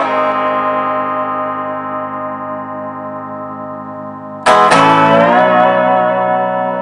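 Handmade lap steel slide guitar: a chord slid into place and left ringing, slowly fading for about four seconds, then a new chord struck loudly with the slide gliding its pitch.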